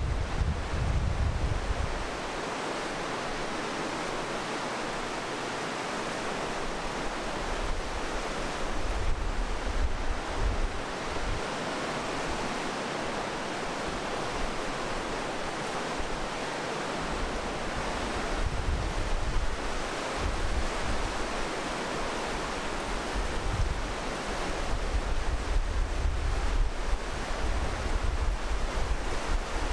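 Mountain river rushing through a narrow rock gorge, a steady, even roar of water. Gusts of wind buffet the microphone with low rumbles at the start, around a third and two-thirds of the way in, and through the last few seconds.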